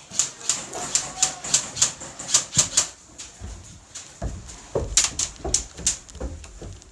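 Airsoft guns firing in quick runs of sharp clicks, about three shots a second, with low thuds in between.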